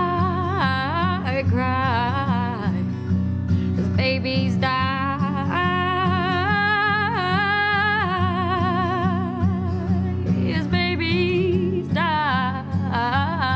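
A woman singing solo over a strummed acoustic guitar, in three sung phrases with short gaps between them. The middle phrase has long held notes with vibrato.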